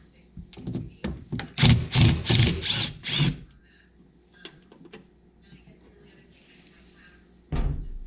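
Cordless drill/driver backing out the water heater's mounting screws in a series of short trigger bursts over the first three seconds or so. A loud thunk follows near the end.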